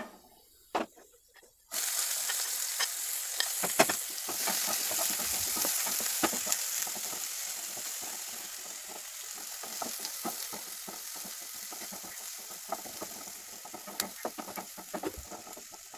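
Chopped onion sizzling in hot oil in a nonstick pan, stirred with a wooden spatula that clicks and scrapes against the pan. The sizzle starts suddenly about two seconds in, as the onion goes into the oil, and slowly dies down.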